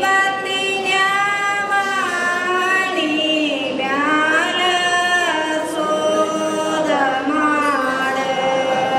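Singing: a voice holding long notes, sliding up and down between them.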